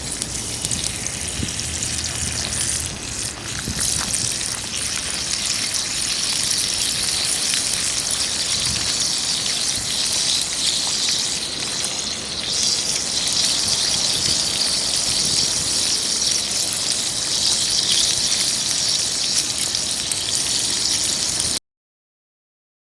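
Food sizzling and frying in a skillet over a campfire, a steady hiss that grows a little louder after a few seconds, then cuts off abruptly near the end.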